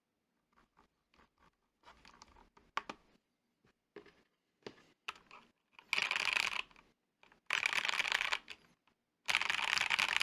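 Akko MOD007 mechanical keyboard being typed on: scattered single keystrokes at first, then about six seconds in, three dense bursts of fast typing, each about a second long. The board is stock, which the owner finds sounds pretty hollow.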